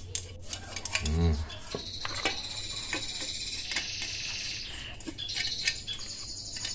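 Hand scrubbing and scraping thinner-softened paint off an aluminium motorcycle engine case cover, a run of small scratches and light metal clinks. Insects chirr steadily behind it, and a brief low voice sound comes about a second in.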